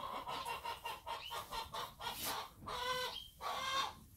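Chickens clucking and calling repeatedly: a string of short clucks, then a couple of longer drawn-out calls near the end.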